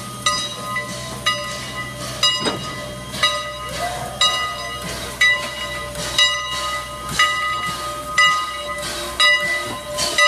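Strasburg Rail Road steam locomotive No. 89, its bell ringing about once a second over steady hissing steam.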